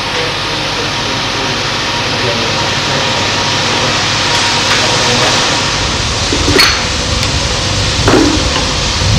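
Steam locomotive in steam with a steady hiss of escaping steam. Near the end come two sharp metal knocks, about a second and a half apart.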